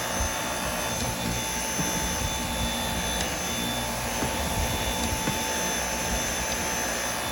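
Dyson V8 cordless stick vacuum running steadily with a high motor whine, vacuuming baking soda out of the car's interior.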